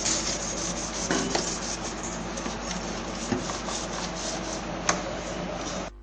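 Old brush scrubbing a stained fridge interior in rapid back-and-forth strokes, with a sharp click about five seconds in; the scrubbing stops abruptly near the end.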